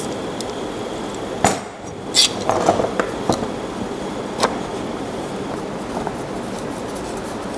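Metal bar clamps being fitted and tightened on a glued wooden box: a handful of sharp metallic clicks and clinks as the clamp bars and jaws knock and slide, over a steady background hiss. It is quieter toward the end.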